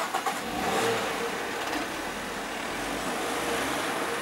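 Cars pulling away across a level crossing as the barriers lift: an engine accelerating and tyres on the road, with a sharp knock at the start.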